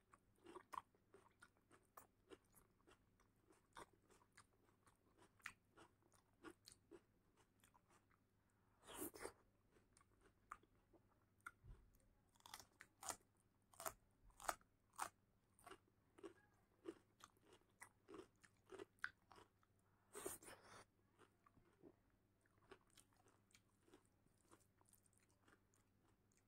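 A person chewing a mouthful of rice and lentil dal eaten by hand, close to the microphone, with many short wet mouth clicks and crunches. Two longer, louder chewing sounds come about 9 and 20 seconds in.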